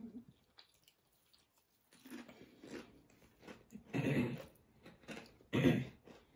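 Close-miked chewing of a sub sandwich and potato chips: a few irregular crunchy bites and mouth sounds, the loudest about four and five and a half seconds in.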